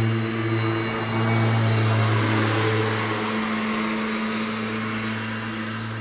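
Ryobi 80-volt electric zero-turn riding mower running with its blades on: a steady low hum with a broad hiss over it, easing slightly in level through the second half.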